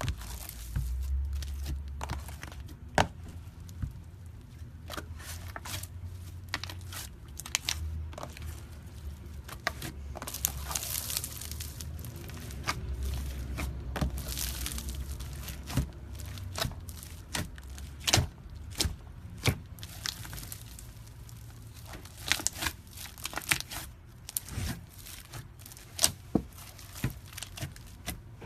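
Slime being squished and stretched by hand, giving irregular sticky pops and crackles, some in quick clusters, over a low handling rumble.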